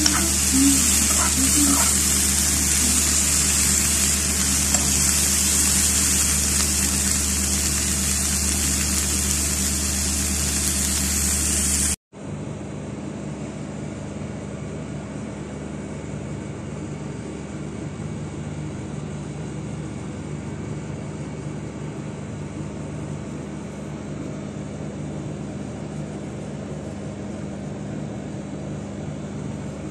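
Vegetables sizzling as they stir-fry in a nonstick pan, a steady bright hiss over a low hum, with a few light spatula scrapes at the start. About twelve seconds in the sound cuts off abruptly to a quieter, duller steady hum and hiss.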